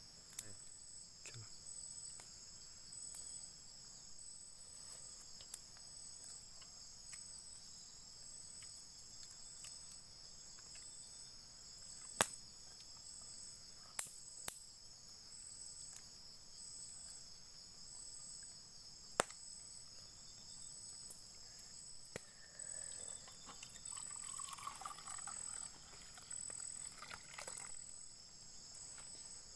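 Insects chirping: a steady high-pitched drone with a rhythmic pulsing chirp above it, broken by a few sharp clicks near the middle.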